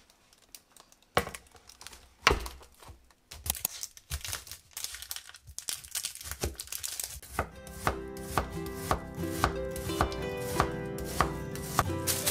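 Kitchen knife cutting an onion on a wooden cutting board: two sharp knocks in the first few seconds, then a run of quick short cuts. About halfway through, soft background music with a steady beat joins in.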